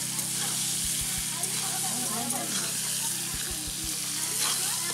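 Potato chunks sizzling as they fry in oil in a metal kadai over a wood fire, stirred with a long metal spatula.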